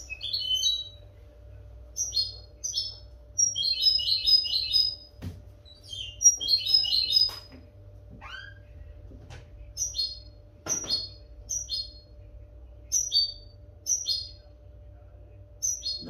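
European goldfinch singing: short high twittering phrases every second or so, with denser rapid runs of notes around four and seven seconds in. Two sharp clicks come about five and eleven seconds in, over a faint steady hum.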